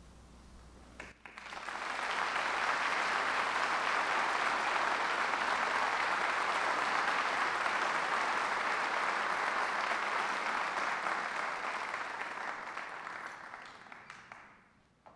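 Audience applauding, starting abruptly about a second in, holding steady, then dying away near the end.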